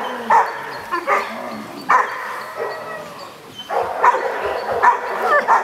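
Young Rottweilers barking in short, repeated barks, about one a second, with a brief lull about halfway through.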